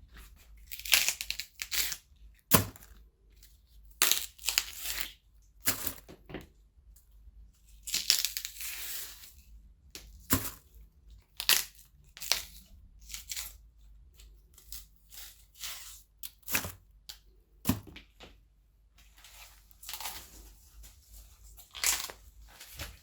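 Celery stalks being snapped and broken by hand: a series of sharp cracks, each followed by short crunching and fibrous tearing, with pauses between breaks.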